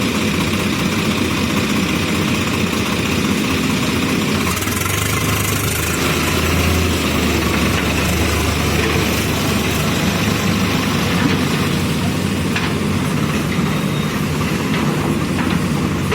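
JCB backhoe loader's diesel engine running steadily, swelling slightly for a couple of seconds partway through.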